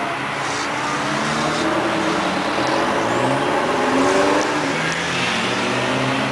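Engines of vintage FSO-built saloon cars, among them a Polski Fiat 125p, running as they drive past, with the engine pitch rising and falling as they accelerate, loudest about four seconds in.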